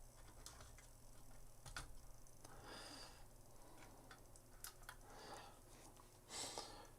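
Near silence at the workbench, broken by faint scattered light clicks and ticks and a couple of soft hissing breaths.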